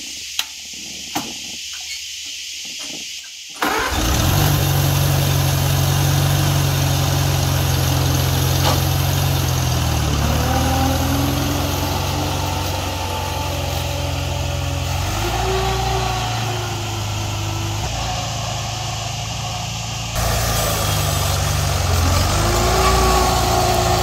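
Two sharp clicks, then the 1948-era Farmall Cub's small four-cylinder flathead engine starts suddenly about three and a half seconds in and runs steadily. Its engine speed shifts a few times as the tractor drives off and pulls a plow through dry, hard ground.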